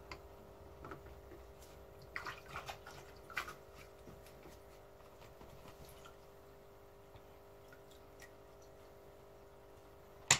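Water dripping and splashing lightly as goldfish are netted out of a home aquarium, with a few small splashes about two to three seconds in. A steady hum from the aquarium equipment runs underneath, and there is one sharp click just before the end.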